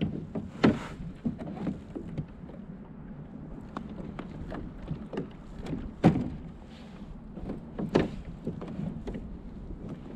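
Irregular knocks and taps on a plastic fishing kayak as the angler handles rod and gear, three louder thunks with lighter taps between.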